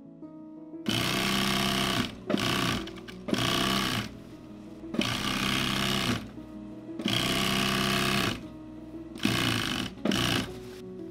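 Industrial sewing machine stitching, running in short bursts that start and stop about seven times, starting about a second in, over soft background music.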